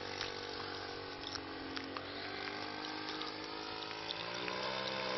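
Engine of a radio-controlled model Cessna 152 droning steadily as it flies at a distance. A little after the middle the drone rises in pitch and grows louder as the plane comes closer.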